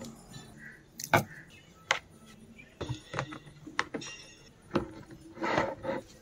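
Irregular clicks and light taps from plastic wire clips being pressed onto the plastic rim of a washing machine tub and the wires being handled. The loudest click comes about a second in.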